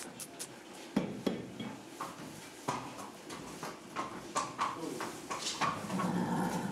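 A trotting horse moving about in its stable stall: scattered, irregular knocks and clicks, busier and louder near the end.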